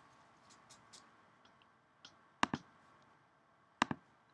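Two pairs of sharp clicks, the first about two and a half seconds in and the second about four seconds in, like the clicks of a computer mouse button, with a few fainter ticks before them.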